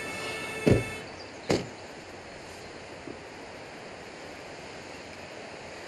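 Two car doors of a black Range Rover SUV shut, about a second apart, the first the louder, under the last moment of background music. After that there is a steady rushing outdoor noise.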